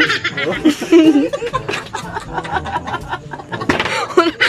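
Men laughing and chuckling.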